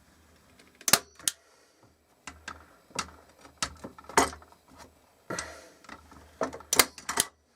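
Hand staple gun firing staples through leather into a wooden board: a series of sharp snapping clicks at irregular intervals, with handling noise between the shots.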